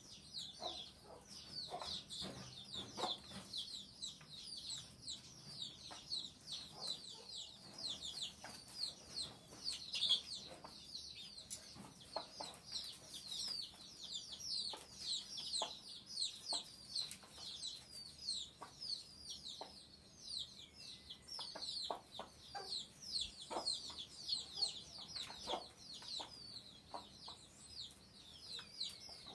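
Chicks peeping continuously: short, high, falling peeps, several a second, with scattered short clicks beneath.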